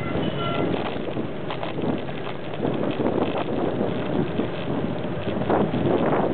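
Wind rushing over the microphone of a handlebar-mounted camera on a moving bicycle, a steady buffeting noise with street traffic underneath.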